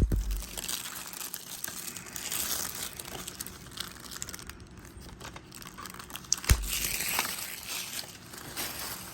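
Plastic shrink-wrap being torn and peeled off a DVD case, crinkling and crackling throughout, with two sharp knocks, one at the start and one about six and a half seconds in.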